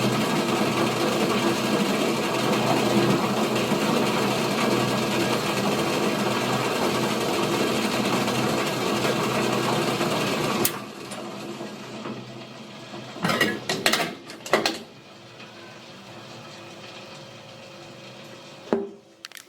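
Water at a full boil in a pot or kettle, a dense steady bubbling that stops abruptly about halfway through. A few sharp knocks and clanks follow, then a click near the end.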